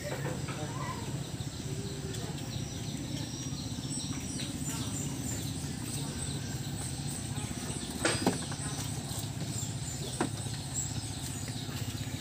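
Small red stationary engine mounted in a racing boat running steadily at an even idle, with birds chirping and a couple of sharp knocks about eight and ten seconds in.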